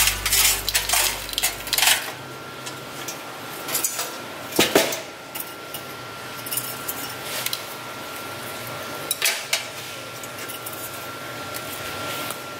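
Dry, sugar-coated candied ginger slices being handled on a plate: scattered light clinks and taps, with a few sharper knocks about four and nine seconds in. A faint steady high tone runs underneath.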